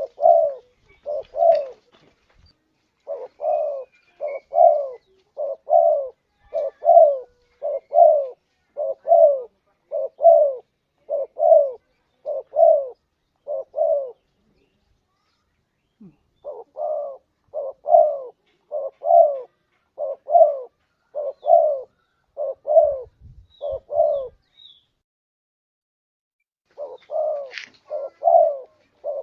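Spotted dove (tekukur) cooing: runs of short, low coos, about one and a half a second, in long series broken by brief pauses.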